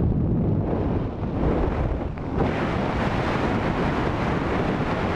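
Wind from the parachute descent rushing over the microphone, a loud steady noise that grows stronger and hissier about two and a half seconds in.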